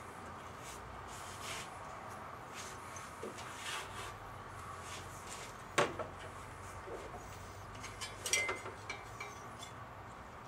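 Light clicks and knocks of hands and tools working in a car's engine bay, with a sharp click about six seconds in and a cluster of knocks a little after eight seconds, over a steady background hum.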